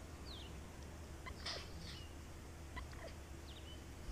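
Faint, short, high bird chirps that slide downward in pitch, a few times, with a couple of sharp clicks among them, over a low steady outdoor hum.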